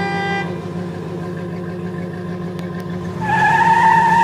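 Car engine sound effect running steadily, with a loud tyre screech coming in about three seconds in.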